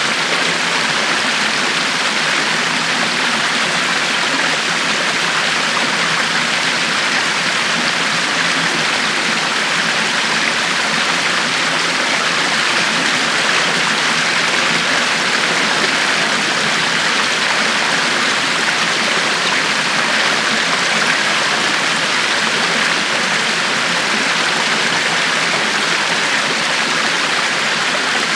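River water flowing and rushing steadily over rocks, an even, continuous splashing hiss.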